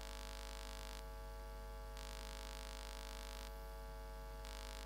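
Low steady electrical mains hum with a few faint steady tones, and a faint hiss that switches on and off every second or so; no speech.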